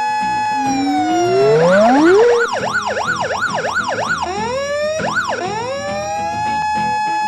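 Electronic emergency-vehicle siren: a held steady tone that winds up into quick up-and-down yelp sweeps for about two seconds, then eases back to a long steady tone, with a second siren tone overlapping at times.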